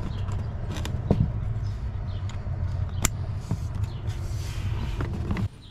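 Plastic footwell trim panel and its wiring connectors being handled, with a few clicks, the sharpest about three seconds in, as the connectors are plugged in. A steady low hum runs underneath and cuts off suddenly near the end.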